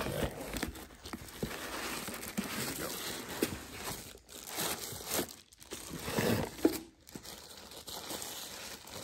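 Thin plastic wrapping bag crinkling and rustling as the boxed item inside it is handled and lifted out of its foam-lined cardboard box, with packaging rubbing. The handling gets louder about six seconds in.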